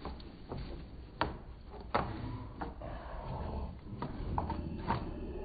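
Fluffy white dog rolling and wriggling on its back on wet wooden decking: irregular knocks and scrapes of its body and claws against the boards, about eight in all, over a low rumble.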